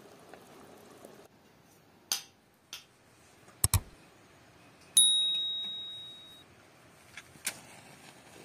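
Metal clicks and clinks from a kerosene heater's parts being handled, with one bright metallic ding about five seconds in that rings on and fades over a second or so.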